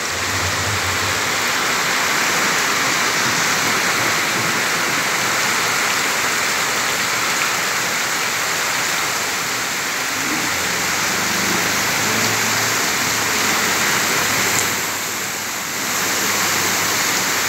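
Heavy rain pouring steadily onto a flooded street, a dense even hiss. Now and then comes the low hum of vehicles driving through the floodwater.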